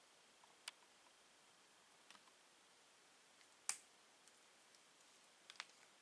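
Near silence with a few faint, scattered clicks, about five, the sharpest about two-thirds of the way through and a quick pair near the end.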